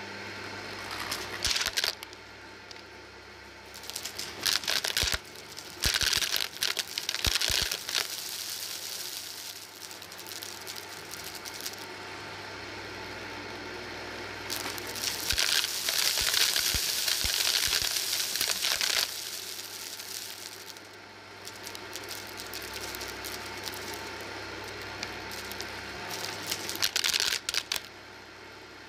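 A Shark DuoClean Lift-Away vacuum runs with a steady hum over carpet. Over the hum come repeated spells of crunching and rattling, with a few sharp clicks, as it sucks up scattered dry granules. The longest spell comes about halfway through.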